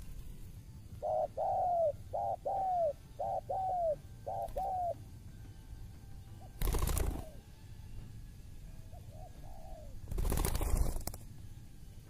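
Spotted dove (tekukur) cooing: short falling coo phrases repeated four times in the first five seconds, with fainter coos later. Two loud rustling bursts of noise cut in about seven and ten seconds in.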